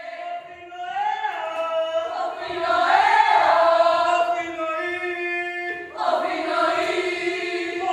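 A group of women singing or chanting together on long held notes, swelling loudest about three seconds in, easing off, then starting a new phrase about six seconds in.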